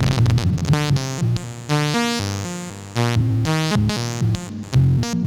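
Sequenced analogue synth notes played through the Djupviks Mörser Wasp-style filter, a fast run of stepping pitches with a gritty, resonant filter tone. Its clocked digital noise source is modulating the cutoff.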